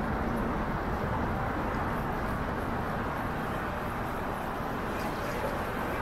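Steady street noise heard from a moving bicycle: a constant low rumble of wind and road traffic, with no single event standing out.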